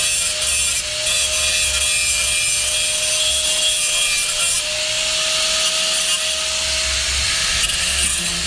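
Electric grinder abrading rusty steel sheet metal: a steady motor whine under a continuous harsh scraping hiss as rust scale is ground off.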